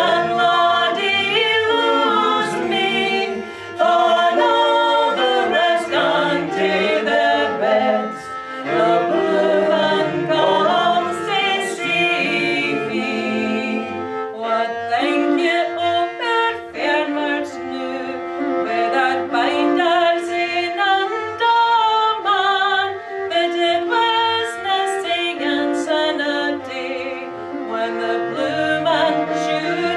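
Two women singing a Scottish bothy ballad together, with a fiddle playing along.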